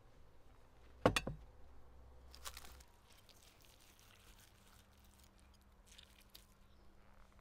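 Metal spoon clinking sharply against a ceramic plate about a second in, with a few lighter taps and scrapes as rice is served, then faint ticks of a knife and fork carving roast lamb.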